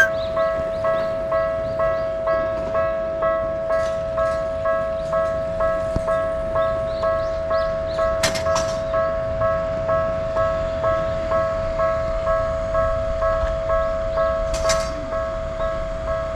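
Japanese level-crossing warning bell ringing in an even, unbroken rhythm of about two strikes a second over a steady tone, with two short sharp clicks about 8 and 15 seconds in.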